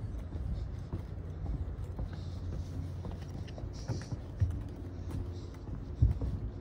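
Footsteps on a path while walking, short crunching and tapping steps recurring every second or so, over a steady low rumble.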